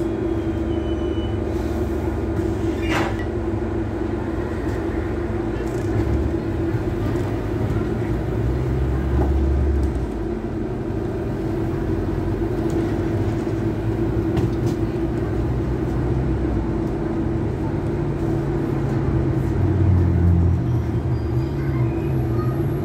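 Double-decker bus running along the road, heard from the upper deck: a steady whine over a low engine and road rumble that shifts as the bus changes speed, with a single sharp knock about three seconds in.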